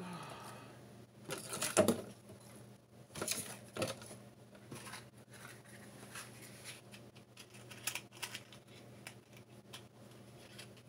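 Rustling, scraping and small clicks of cardboard and kindling being handled at an open wood stove, with louder bursts of rustling about a second and a half and three and a half seconds in.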